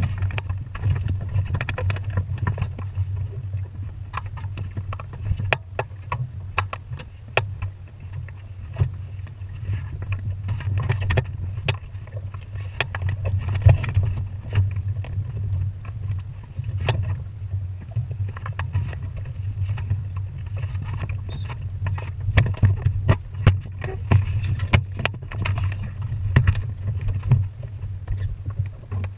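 Pacer sailing dinghy under way: water slapping and splashing against the hull with many short, sharp knocks, over a steady low rumble of wind on the microphone.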